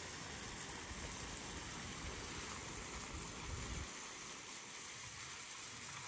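Steady hiss of rushing water, with a low wind rumble on the microphone that drops away about four seconds in.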